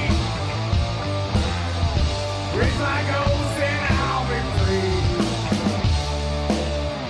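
Rock music with drums, guitar and a singing voice.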